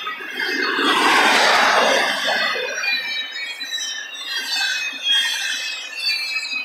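Double-stack intermodal well cars rolling past, their steel wheels squealing against the rail in several high, wavering tones. A louder rush of rolling noise swells up about a second in and fades a second later.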